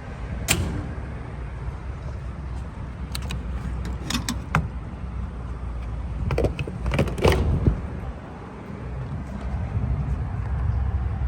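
Sharp clicks and knocks, about seven in all, of a gas pump nozzle and car fuel filler being handled as refuelling ends, over a steady low rumble.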